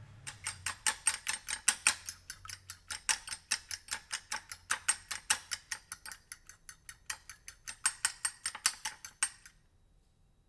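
An egg being beaten in a bowl, the utensil clicking rapidly against the bowl at about five strokes a second. The beating stops about a second before the end.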